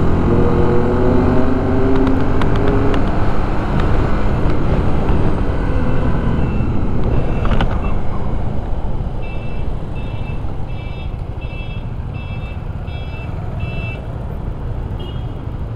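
Motorcycle ridden through city traffic: engine rising in pitch as it accelerates over steady wind and road noise, then quieter as the bike slows to a stop in traffic. About halfway through a series of about seven short high electronic beeps sounds, roughly two a second.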